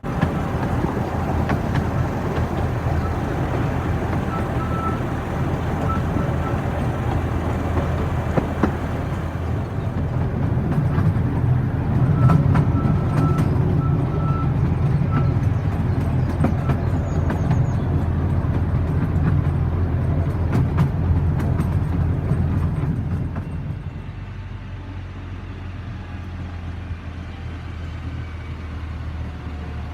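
Heavy diesel engine running steadily, with a few knocks and clanks, then dropping to a quieter, lower running level about 23 seconds in.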